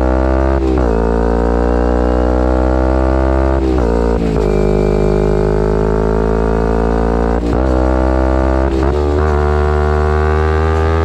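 2011 Kawasaki Ninja 250R SE parallel-twin engine on a full Graves race exhaust, running under way at steady mid revs with a loud, buzzy exhaust note. The revs dip sharply and pick up again about five times.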